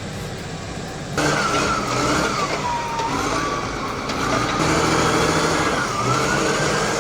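A vehicle engine revving under load, with a whine that rises and falls; it cuts in suddenly about a second in.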